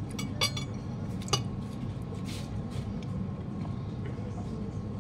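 Knife and fork clinking against a plate during a meal: a quick cluster of clinks about half a second in and a single sharper one a second later, over a steady low room hum.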